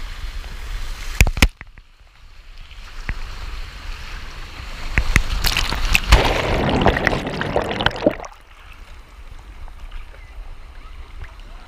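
Water rushing down a pool water slide as a rider slides, with two sharp knocks about a second in, then a sudden drop in level. The water noise builds into a loud splashdown into the pool, which cuts off suddenly near the end and gives way to light sloshing at the surface.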